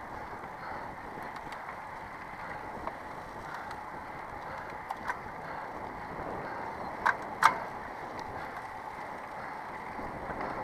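Road bike tyres rolling over a packed dirt road, a steady rolling noise mixed with wind, with a few sharp clicks and knocks from the bike, the loudest two about seven seconds in.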